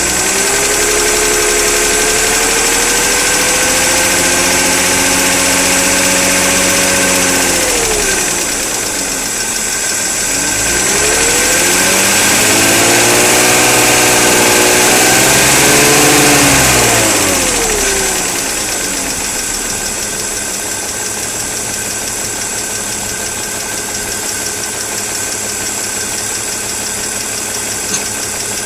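BMW E46 320i straight-six engine revved twice, each time held at raised speed for a few seconds and then let back down, and idling for the rest. The car has a rattle that its owner is trying to show.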